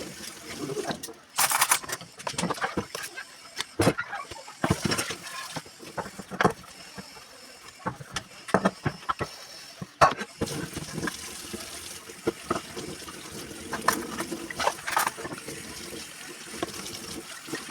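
Water running from a kitchen tap into a sink, with irregular knocks and clatter of things being handled and rinsed.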